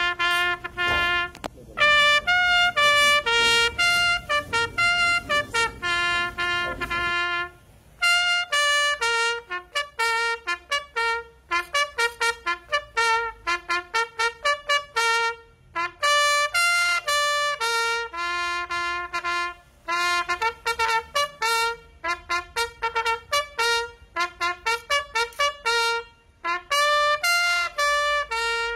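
Solo trumpet playing a melody of separate, clearly articulated notes, with short breaths between phrases. A low rumbling noise lies under the first seven seconds or so.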